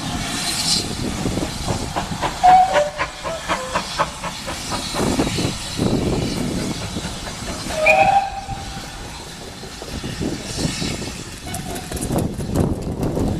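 Steam locomotive hissing steam, with short whistle notes about two and a half seconds in and again near eight seconds, and a run of sharp beats in between.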